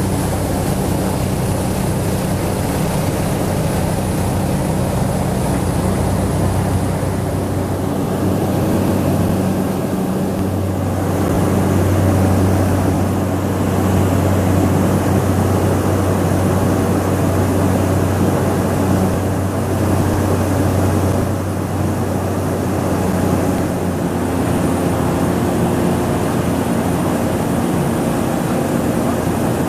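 Cessna 208B Grand Caravan cabin in cruise: the single PT6A turboprop engine and propeller make a steady drone, with a strong low hum and a faint high whine. The drone swells a little about a third of the way through.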